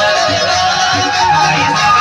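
Loud folk dance music: a steady drum beat under a wavering, gliding melody line.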